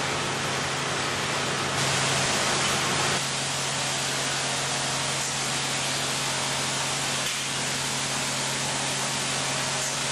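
Ultra-high-pressure water jet of a hull-stripping robot blasting coating off a ship's hull: a steady hiss over a low machinery hum, swelling louder for about a second roughly two seconds in.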